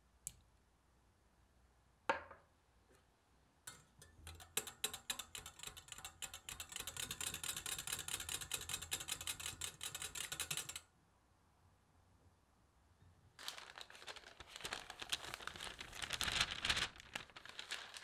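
Wire whisk beating an egg yolk into melted butter, cream cheese and milk in a glass Pyrex measuring cup, its wires clicking rapidly against the glass. A single knock comes about two seconds in, the whisking runs for about seven seconds, and a second, noisier stretch of rapid strokes follows near the end.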